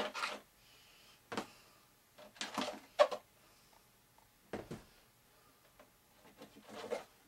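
Hands handling battery packs and their wire leads inside a fiberglass model plane's fuselage: scattered short knocks and rustles, the sharpest knock about three seconds in and a longer rustle near the end.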